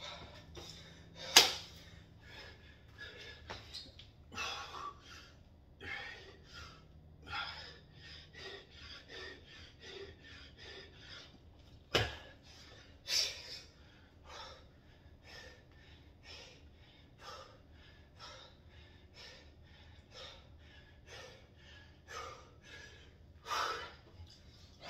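A man breathing hard from exertion, quick noisy breaths at about two a second. A sharp click about a second and a half in, and another halfway through, stand out above the breathing.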